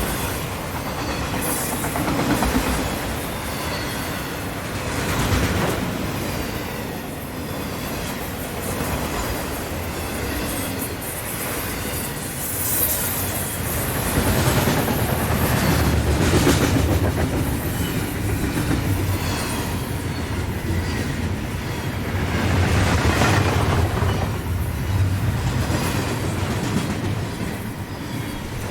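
A train running on rails: continuous rumble and clatter of wheels over the track, swelling and easing, with brief high wheel squeals about a second in and again about halfway through.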